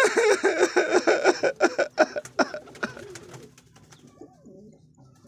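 Pigeons cooing in a rapid pulsing run that fades away about three seconds in.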